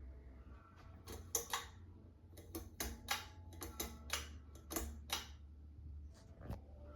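A run of irregular sharp clicks and taps, about a dozen, some with a brief ring, over a steady low hum.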